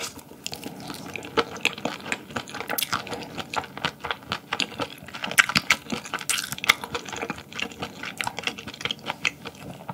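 Chopsticks mixing sea urchin roe bibimbap with seaweed in a bowl: rapid, irregular clicks against the bowl over wet, sticky rice sounds.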